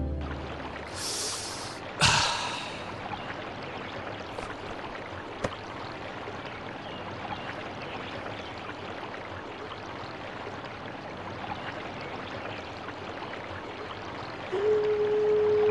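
Steady rush of water pouring over a stone weir. Two brief whooshes come about one and two seconds in, and a single held musical note enters near the end.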